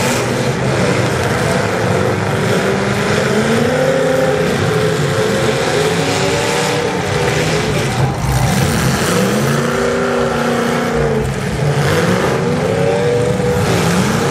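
Several demolition derby cars' engines running and revving together, their pitches rising and falling independently of one another.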